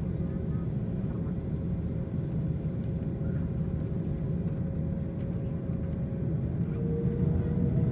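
Steady low rumble inside the cabin of an Airbus A330-300 taxiing, with a faint steady whine that drops slightly in pitch near the end as the rumble grows a little louder.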